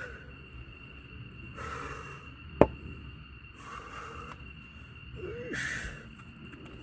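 A single sharp, loud crack of an axe striking and splitting a firewood log, about a third of the way in, with breathy puffs around it and a faint steady high tone behind.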